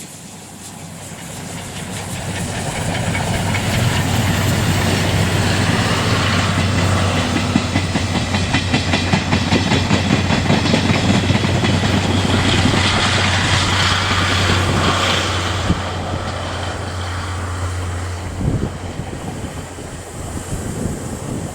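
C57 180 steam locomotive and its 12-series passenger coaches passing close by, with wheels clattering over the rail joints. The sound builds over the first few seconds to a loud, steady rush and eases off near the end.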